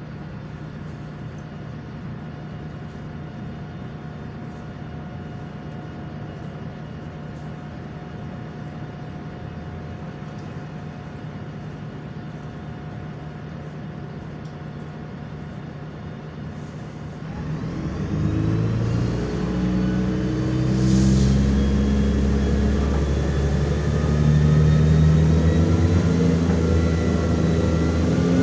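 MAZ-105 articulated city bus's diesel engine idling steadily, heard from inside the bus. About 17 seconds in the bus pulls away and the engine speeds up, its pitch climbing and then dropping back twice as the gearbox shifts up.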